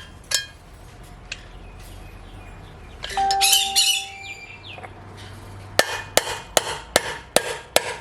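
Metal parts clinking with a brief ring a few seconds in, then a hammer striking a bearing driver in a quick, even series of about six blows near the end, driving a wheel bearing cone down into its seat.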